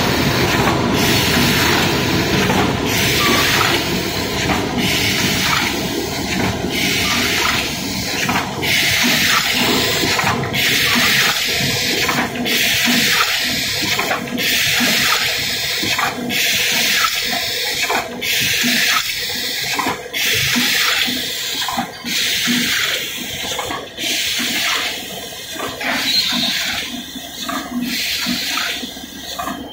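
Automatic take-out food box forming machine running, with its iron-wire-handle unit working: a steady hiss of compressed air and a sharp clack from the pneumatic mechanism about every two seconds.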